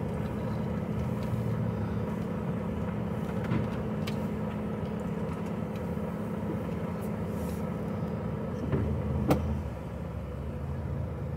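HGV lorry's diesel engine idling steadily while the truck waits stationary, heard from inside the cab. Near the end there is a sharp click, and just after it the engine note drops slightly.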